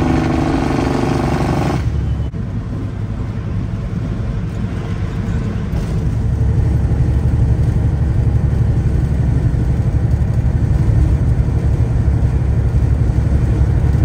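Steady low engine and road rumble heard inside a vehicle's cab at highway speed. It changes abruptly about two seconds in and then slowly gets louder.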